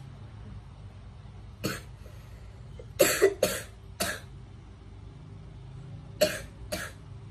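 A woman coughing in short bursts: once about one and a half seconds in, three quick coughs around three to four seconds in, and two more near the end.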